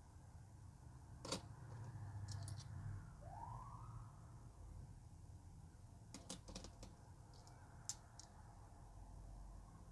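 50 cent euro coins clinking against each other as they are sorted by hand, a scatter of small sharp clicks with a quick cluster of them about six to seven seconds in, one coin set down on a table.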